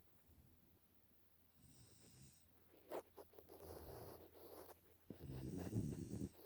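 A Pungsan dog puppy snoring in its sleep. After a quiet first second and a half come soft breaths, and a louder low snore follows over the last second and a half.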